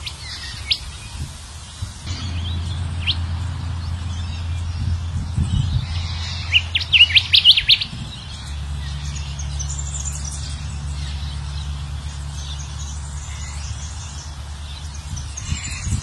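Golden whistler (kancilan emas) song from a bird-lure track: a few short chirps, then a quick loud run of rising notes about seven seconds in, followed by softer high twittering. A steady low hum runs underneath.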